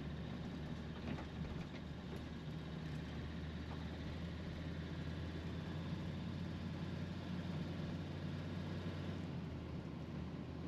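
Inside the cab of a 1999 Utilimaster Ford E350 step van while driving slowly: steady engine and road drone.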